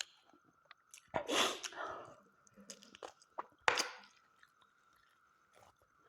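A person eating close to the microphone: chewing and biting mutton on the bone, with wet smacking and small clicks. There is a louder noisy bite about a second in and a sharp crunch a little past halfway. A faint steady high hum sits underneath.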